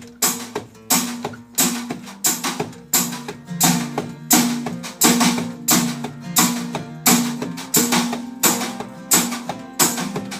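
Acoustic guitar strummed in a steady rhythm, a stroke about every two-thirds of a second, with the chord ringing on between strokes.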